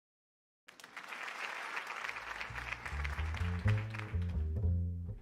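Audience applause that fades away as a double bass comes in about two seconds in, plucking a line of low notes.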